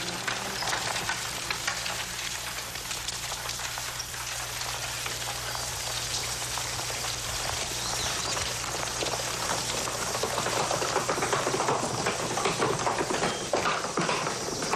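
Outdoor street ambience: a steady crackly haze of bustle with many small clicks, growing louder and busier in the last few seconds.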